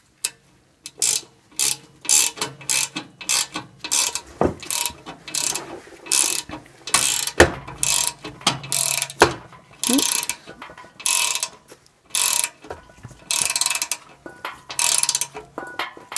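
A 13 mm ratcheting wrench clicking in short back-and-forth strokes, about two a second, as it turns a double-nutted replacement stud into the exhaust flange. There are a few sharp knocks in the middle, where the long wrench runs into nearby parts.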